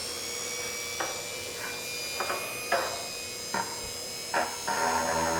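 Dremel rotary tool whining at high speed, with short scraping strokes as the bit grinds into plastic, cutting a V-groove along a crack. A lower steady hum made of several tones comes in near the end.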